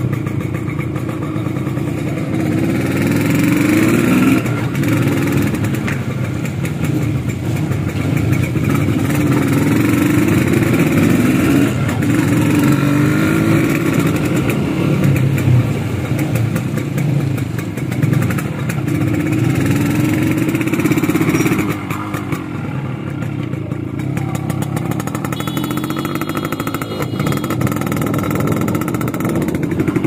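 1991 Kawasaki GTO 125's two-stroke engine under way on a ride. Its pitch climbs again and again as it accelerates through the gears and falls back at each shift, then runs lower and steadier from a little past the twenty-second mark.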